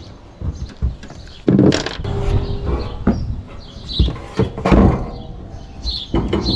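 Irregular knocks and clanks of scrap metal being handled, about five heavier hits, with birds chirping faintly in the background.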